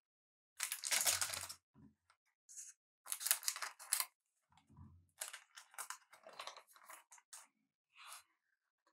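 Foil wrapper of a trading-card pack tearing and crinkling in two long rips, followed by a quick run of short clicks and snaps as the cards are handled.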